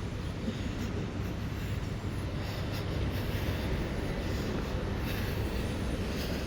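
Steady low rumble of city street traffic, an even noise with no distinct events.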